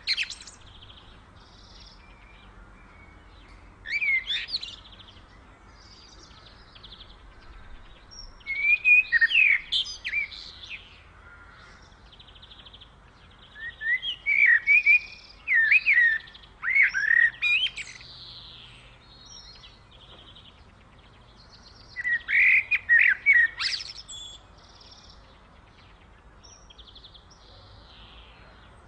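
Songbird singing in bursts of quick, sliding chirps, four loud phrases a few seconds apart, with fainter bird chirps between them.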